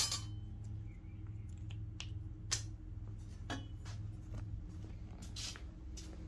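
Scattered light clicks and taps of small sheet-metal pieces being handled and positioned, over a steady low hum.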